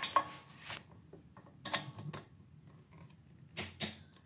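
A torque wrench's ratchet and socket extension working on a motorcycle exhaust header nut: a handful of sharp metallic clicks and clinks spread out with pauses between, the loudest at the start.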